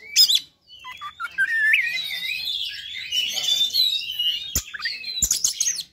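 Oriental magpie-robin singing a fast, varied run of rising and falling whistled notes, its agitated 'fighter' song, with a brief pause just after the start. Two sharp knocks about two-thirds of a second apart near the end.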